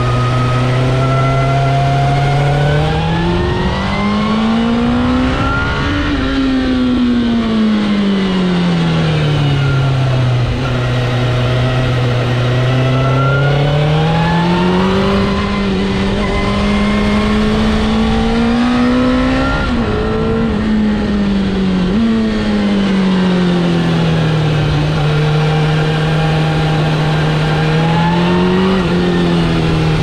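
Suzuki GSX-R 1000's inline-four engine running under the rider's throttle on a winding road: its pitch climbs as it accelerates out of bends and falls back as it rolls off. There are steady stretches and two sudden drops in pitch around twenty seconds in, over constant wind and road noise.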